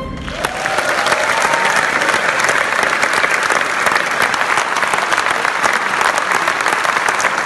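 Large theatre audience applauding after the band's final chord, dense clapping that swells over the first second and then holds steady.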